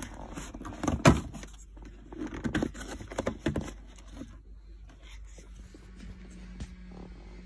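Clicks, knocks and scraping of hard plastic interior trim being handled while the armrest phone cradle is worked loose, with one sharp knock about a second in. A faint steady low hum comes in near the end.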